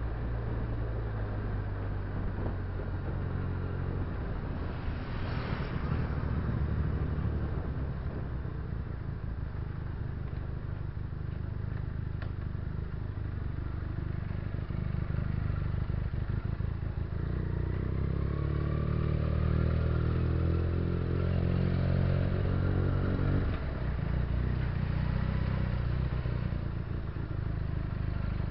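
Benelli TNT300 (BN302) 300 cc parallel-twin motorcycle engine running at low revs, rising in pitch as the throttle is opened from about 17 seconds in and dropping back suddenly near 23 seconds. A brief rushing sound comes about five seconds in.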